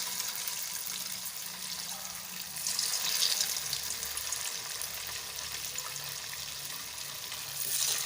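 Marinated chicken pieces sizzling as they fry in hot oil, a steady hiss that swells louder about two and a half seconds in and again near the end.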